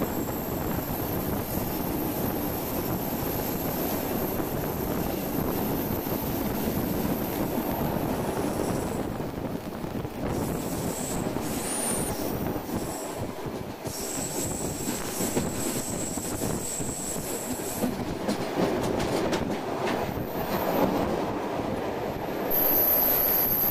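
Passenger train cars rolling along the track, heard from an open carriage window: a steady rumble of wheels on rails, with a high-pitched squeal of wheels rounding a curve that comes and goes. A run of clicks from the wheels comes a little before the end.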